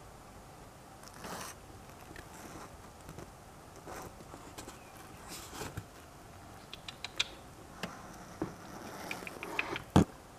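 Light scratching, rustling and clicking of a baby acacia rat scrambling over a wooden shelf and branch, with a quick run of small ticks about two-thirds of the way through. A single sharp knock sounds near the end.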